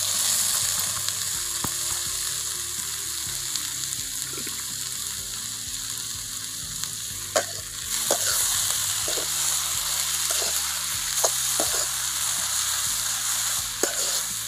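Boiled drumstick leaves and dal sizzling in hot oil in an aluminium kadai, with a metal spatula scraping and clinking now and then as they are stirred. The sizzle grows louder about halfway through.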